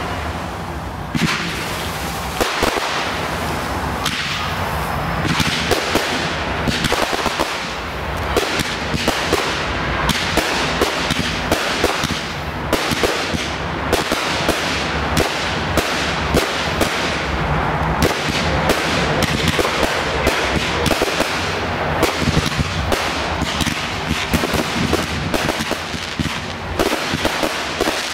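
Fireworks display: a continuous barrage of sharp cracks and bangs, several a second, with crackling between them.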